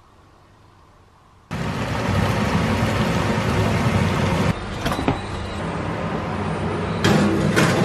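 Vegetables stir-frying in a hot pan: a loud, steady sizzle that starts suddenly about a second and a half in. After about three seconds it drops a little, with a few sharp clicks and knocks, the loudest near the end.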